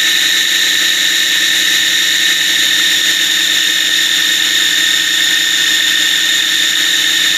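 Food processor motor running steadily with a constant high whine, blending garlic with lemon juice and oil into toum, an emulsified garlic sauce.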